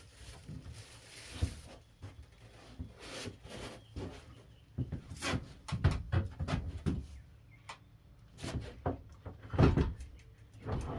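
Plastic wrapping rustling as it is pulled off a Skil 10-inch sliding miter saw, then a string of irregular knocks and clunks as the heavy saw is handled and set down on a table, the loudest about halfway through and again near the end.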